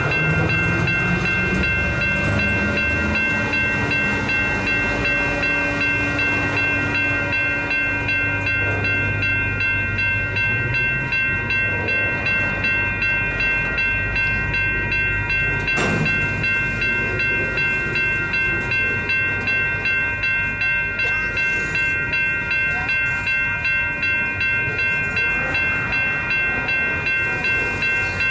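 Double-stack intermodal freight cars rolling past at street level with a steady rumble, while a crossing warning bell rings on and on at about two strokes a second. One sharp bang from the cars about halfway through.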